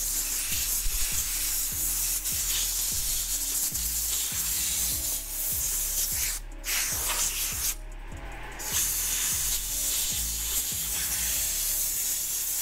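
Compressed air blasting from a handheld air blow gun into a manual transmission case, a steady hiss that cuts out briefly twice about halfway through as the trigger is let go. The air is blowing debris out of the case after a stuck sensor was drilled out.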